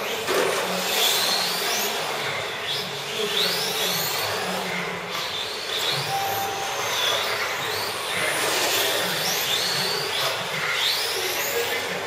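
Electric radio-controlled F1 cars running on an indoor track: their motors give high whines that rise in pitch over and over as the cars accelerate, over a steady hiss of tyres on the carpet.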